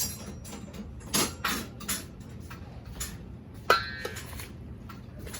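Kitchen containers and utensils being handled while lemon vinaigrette goes onto a kale salad: a few short scrapes and clicks, then one sharp, briefly ringing clink a little under four seconds in.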